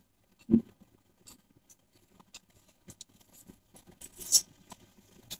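Metal spoon stirring coconut milk in a stainless steel saucepan: scattered light clinks and scrapes of the spoon against the pan, with a louder knock about half a second in and a short scraping rustle near the end.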